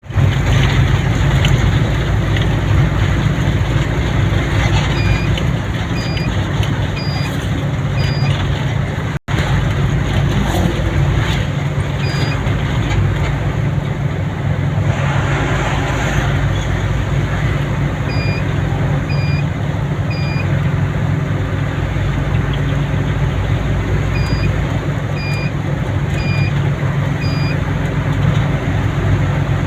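Steady engine and road rumble of a vehicle being driven along a road. Short high beeps sound about once a second in several runs of three or four. The sound cuts out briefly about nine seconds in.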